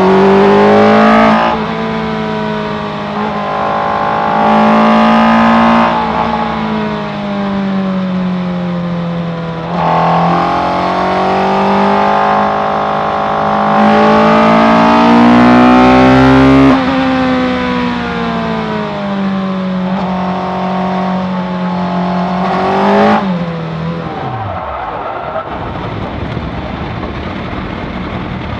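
Suzuki Hayabusa 1300 inline-four engine of a lightweight track car revving hard, rising and falling several times through acceleration, gear changes and lifts. About 23 seconds in, a last burst of revs drops away sharply as the car spins on the wet track. A noisy rush with little engine sound follows.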